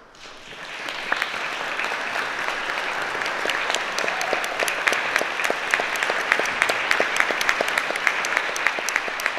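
Audience applauding: dense clapping that builds over the first second, then holds steady.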